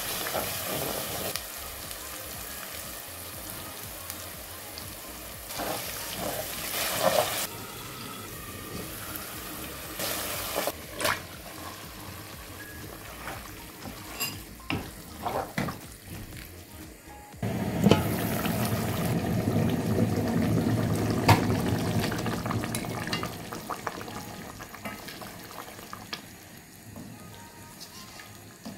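Spice paste frying in oil in a pot, stirred with a wooden spoon: a steady sizzle with scattered knocks of the spoon against the pot. The sizzling gets suddenly louder a little past halfway, then dies down toward the end.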